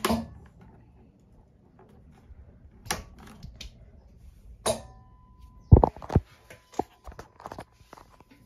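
Handling clicks and knocks at a boat's helm, starting with the ignition key being turned in its switch. A faint high steady tone sounds for about a second midway, and two loud thumps come about six seconds in.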